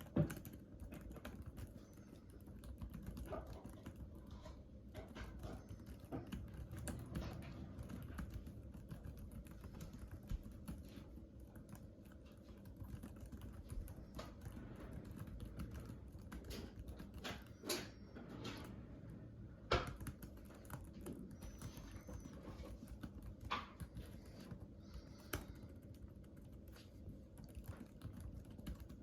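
Continuous typing on a computer keyboard: a dense, steady stream of quick key clicks, with a few louder single strokes standing out, near the start and again about two-thirds of the way through.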